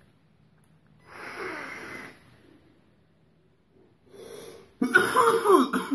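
A long hissing draw through a vape's dripping atomizer, then, after a pause, vapour blown out, followed by loud coughing and wheezing near the end.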